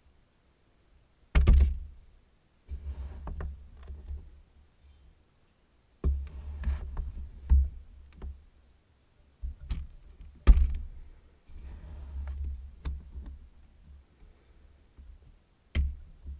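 Kinetic sand being cut and handled with a hard tool, giving irregular dull thuds and sharp knocks with soft scraping between them. The loudest knocks come about a second and a half in and again about ten seconds in.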